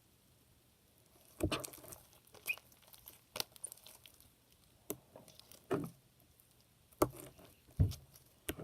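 Hands kneading and pulling sticky homemade slime, making irregular wet clicks, pops and squelches about once a second, starting a little over a second in.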